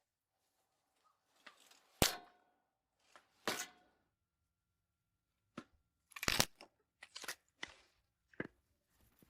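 Sharp knocks and clicks at irregular intervals, about seven of them, the loudest about two seconds in; a couple leave a brief faint ringing tone.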